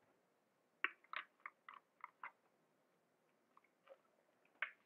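Faint clicks of a water bottle being handled and opened, a quick run of about seven, then a few soft mouth and swallowing sounds as someone drinks from it.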